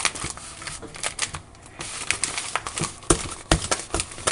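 Irregular clicks, taps and crinkling from objects being handled, with a couple of sharper knocks about three seconds in.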